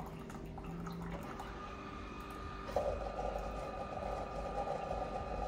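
Single-serve brewer running and dispensing hot water into a mug, with a steady hum; a louder rushing sound joins in a little under three seconds in.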